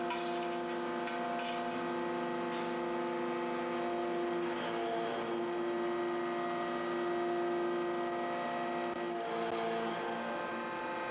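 Deep-drawing press running as it draws a metal tube through the die, a steady machine hum of several held tones that shifts briefly about halfway through and again near the end. A few faint clicks in the first few seconds.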